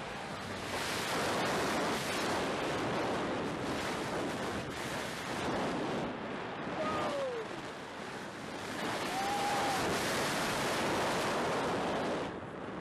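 Wind rushing hard over the microphone of a rider on a steel hyper roller coaster as the train runs through the turns, swelling and easing twice. Two short pitched glides sound near the middle, one falling about seven seconds in and one arching about nine seconds in.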